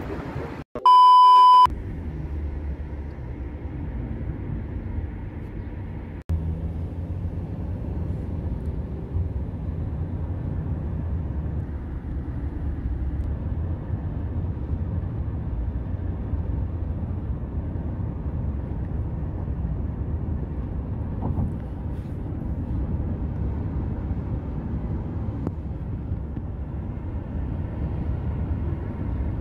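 A loud electronic beep lasting about a second near the start. It is followed by steady, low road and engine noise from inside a moving car.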